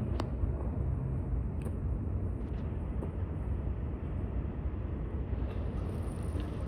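Steady low outdoor rumble, with a faint click about a quarter of a second in.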